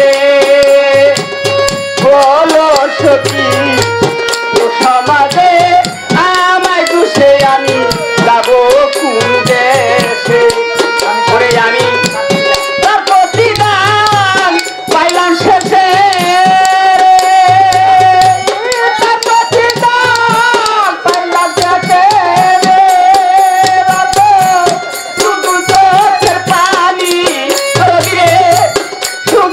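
Bengali folk song: a man's voice singing long, wavering held notes into a microphone over a steady drum beat.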